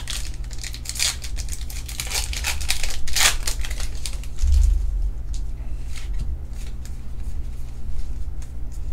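Foil wrapper of a Pokémon TCG booster pack being torn open by hand and crinkling. The crackling is densest in the first three seconds or so and dies down after, over a low steady hum.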